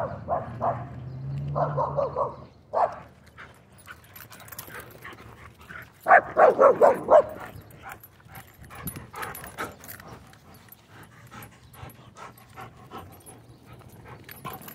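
Dog barking in short runs: a few barks in the first couple of seconds, then a louder string of about six quick barks around six seconds in.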